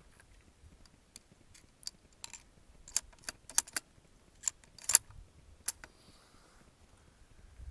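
A run of sharp metallic clicks and clinks from a Stevens 200 .223 bolt-action rifle's bolt being worked to reload between shots, the sharpest about five seconds in.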